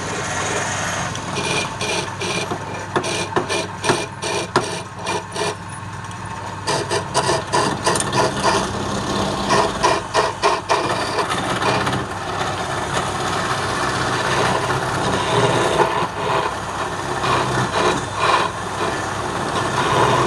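Wood lathe running with a turning tool cutting the spinning workpiece: a steady motor hum under rapid ticking and scraping of the tool on the wood, which turns into a smoother, steadier cutting sound about halfway through.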